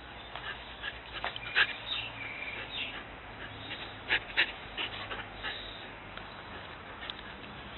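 Husky puppy giving short, high-pitched yips and whines while play-fighting, in scattered calls with the loudest about a second and a half in and twice around four seconds in.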